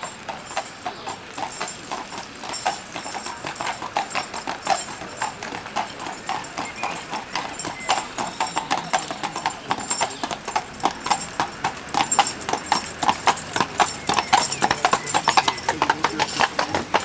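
Hooves of a pair of carriage horses clip-clopping on a wet paved road, getting steadily louder as the carriage draws near.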